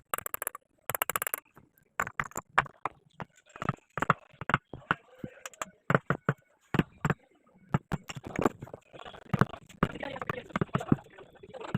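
Hand wood carving: irregular sharp taps, like a chisel being struck into wood, mixed with stretches of scraping.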